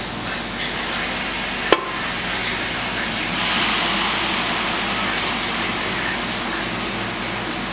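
Steady whooshing noise of fans and test equipment in a small room, with a single sharp click a little under two seconds in. Midway through, a pen scratches on paper for a second or two.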